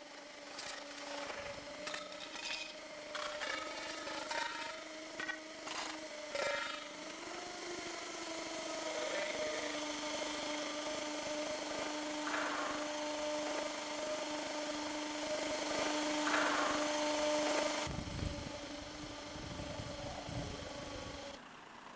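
Steel scaffolding tubes and frames clanking, knocking and scraping as they are handled, over a steady hum.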